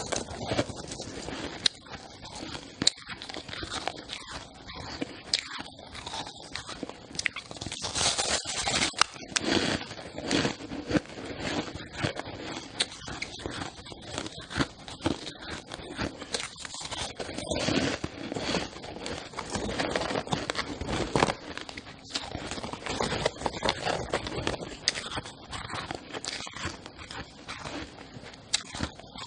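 Shaved ice being bitten and chewed close to the microphone: dense, irregular crunching and crackling that goes on without a break.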